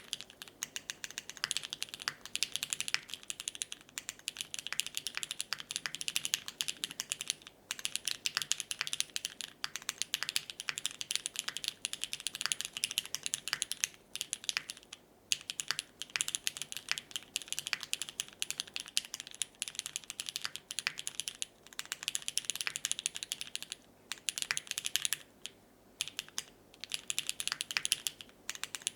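Keycult No. 2/65 mechanical keyboard with lubed, filmed retooled Cherry MX Black linear switches in an aluminum plate, gasket-mounted, with GMK keycaps, being typed on. The keystrokes come in fast runs with a few brief pauses.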